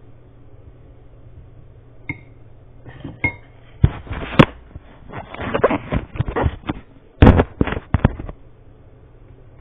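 A spoon knocking, clinking and scraping against a bowl while a mixture is stirred: an irregular run of sharp knocks and scrapes that starts about two seconds in and stops shortly before the end.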